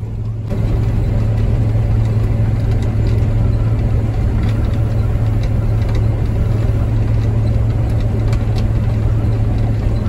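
Older John Deere combine running in the field while cutting oats, heard from inside the cab: a loud, steady drone of engine and threshing machinery over a low hum, which rises slightly about half a second in.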